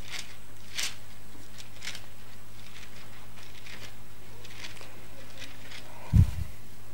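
Soft paper rustles of Bible pages being turned by hand to look up a passage, over a steady low electrical hum. A dull low thump comes about six seconds in.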